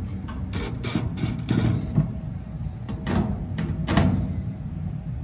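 Cordless drill running as it drives hex-head sheet-metal screws through a starter collar's flange into a galvanized steel duct. Over the motor's low hum come sharp metallic clicks and knocks from the thin sheet metal, loudest about two and four seconds in.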